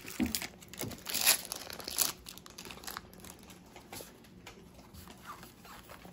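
Foil wrapper of a Pokémon trading-card booster pack crinkling and tearing open, loudest in the first two seconds, then quieter rustling and light clicks as the cards inside are handled.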